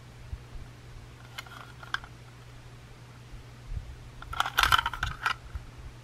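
Plastic Plarail toy train being handled and turned over in the hands: a few faint clicks, then a short cluster of light plastic clicks and rattles about four seconds in.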